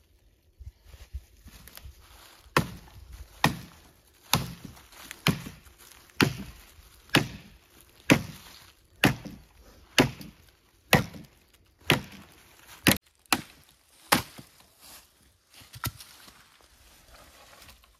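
Sickle chopping a dry branch: about a dozen sharp strikes on wood, roughly one a second, then two weaker ones before they stop.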